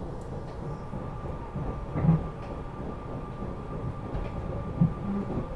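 Interior of a SEPTA Regional Rail electric train car running underground: a steady low rumble of wheels on the track with a faint steady whine above it. Two short louder clunks come about two seconds in and near the end.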